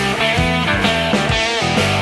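Blues-rock band playing an instrumental break with no vocals: a guitar lead with bent notes over bass and a steady drum beat.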